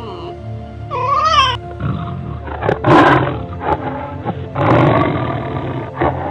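Big cat roaring: two long, rough roars about three and five seconds in, the second the longer, over steady background music. A short wavering cat-like call comes about a second in.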